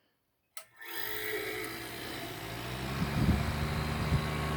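A click, then a vintage Michell dehumidifier starting up about a second in: its fan motor and R12 reciprocating compressor run with a steady hum. Irregular low knocks join from about three seconds in.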